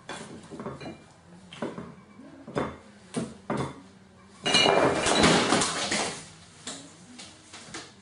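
Gull pecking at a plate of chips, its beak clattering against the china in short sharp knocks. About halfway through comes a louder rush of noise lasting a second or two as the gull flaps down off the worktop.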